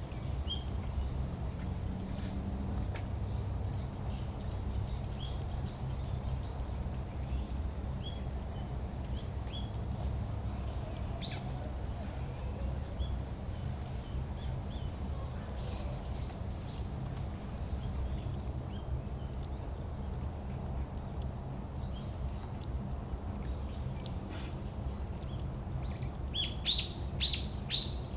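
Small songbirds calling: scattered faint chirps, then a quick run of loud, sharp calls near the end, over a steady high-pitched insect trill.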